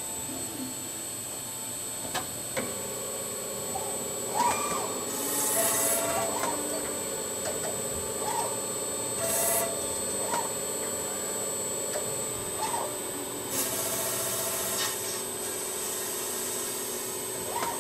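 CNC crankshaft milling machine cutting a spinning crankshaft with a large insert-tipped disc cutter: a steady whine and hum, joined by a lower tone about two and a half seconds in, with a few short hisses and small squeaks.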